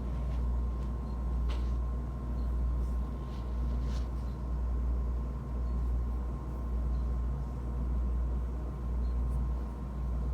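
Vehicle engine idling: a steady low rumble that swells gently about once a second, with a thin steady whine above it and a couple of faint light clicks.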